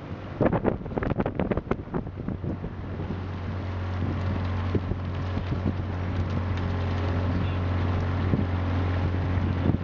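A small boat's outboard motor running steadily with a low, even hum. Wind buffets the microphone in gusts during the first couple of seconds.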